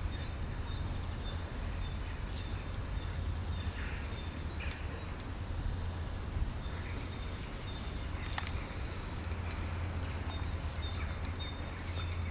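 Two cats eating dry food from a plastic tub, with faint crunches and clicks, over a steady low outdoor rumble. A short high chirp repeats about twice a second throughout.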